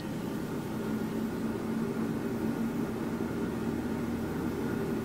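Cook's Essentials air fryer running just after being started: its fan blows a steady rush of air with a low hum, rising a little in level over the first second and then holding steady.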